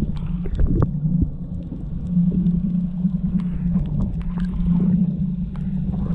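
Underwater ambience picked up by a submerged camera: a steady low hum with scattered clicks and crackles.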